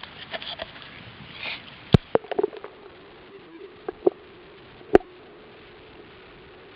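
Sound from underwater among short-finned pilot whales: light splashing at first, then a few sharp clicks and knocks, the loudest about two and five seconds in, over a faint wavering tone.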